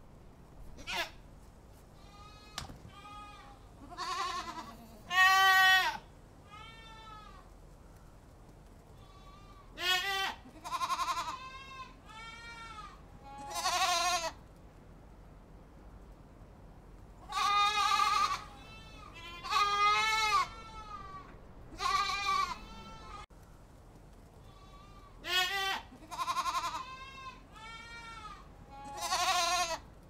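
Goats bleating over and over: short, wavering calls that rise and fall in pitch, some loud and close, others fainter, coming every second or two with a few longer pauses.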